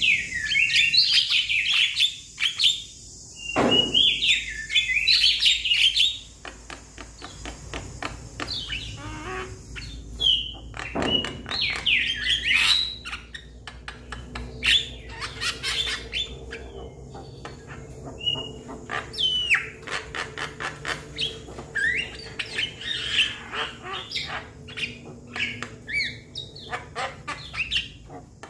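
Young Javan myna (jalak kebo) calling to its flock: harsh, squealing calls in loud bursts during the first six seconds, again around the middle and near the end, with rapid clicking chatter in between. A low thump sounds twice, about four and eleven seconds in.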